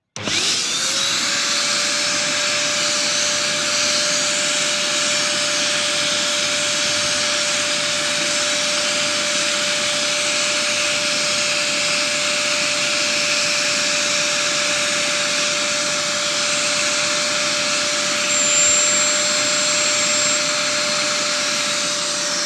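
JK-8 two-in-one 1000-watt vacuum cleaner and blower switched on. Its motor spins up with a quick rising whine, then runs steadily with a constant whine over rushing air. A brief higher whistle comes in about 18 seconds in.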